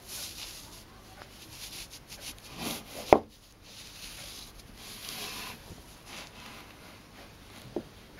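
Soft swishing and rubbing of socked feet in nylon socks moving against each other and on a wooden chair seat, with one sharp knock about three seconds in and a small click near the end.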